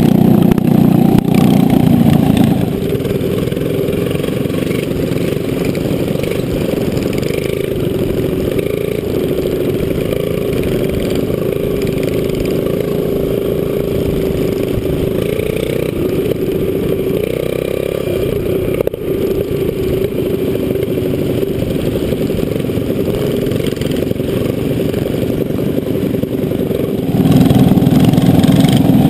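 Mini bikes' small single-cylinder Briggs & Stratton flathead engines running at speed. For about the first two and a half seconds and again near the end, one engine is loud and close. In between is a quieter, steady stretch of several mini bikes riding by.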